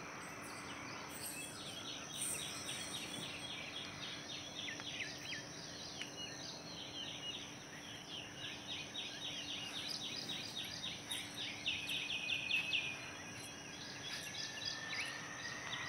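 Birds calling, parrots among them: several runs of quick, high chirps repeated a few times a second, the liveliest about two-thirds of the way in.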